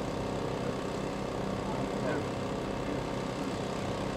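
An engine idling steadily, its pitch holding even.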